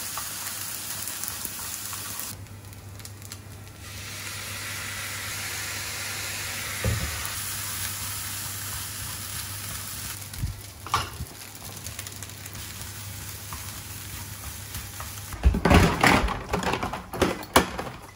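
Egg fried rice sizzling in a nonstick frying pan as it is stir-fried with chopsticks, with a few light clicks of the chopsticks on the pan; the sizzle drops away for a moment a couple of seconds in and grows quieter about ten seconds in. Near the end, a run of loud knocks and bottle rattles as a refrigerator door is opened and a bottle of sauce is taken out.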